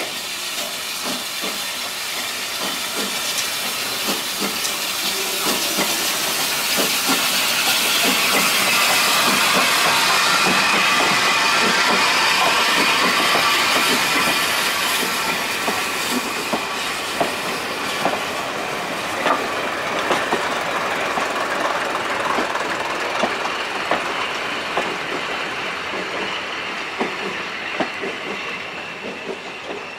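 Small saddle-tank steam locomotive working a train past with its steam hissing, loudest about ten seconds in. Then the coaches roll by with a rhythmic clatter of wheels over the rail joints, fading near the end.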